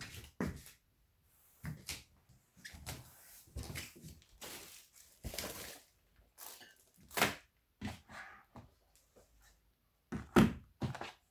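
Handling noise: irregular knocks, taps and rustles of things being picked up and set down, with one sharper, louder knock near the end.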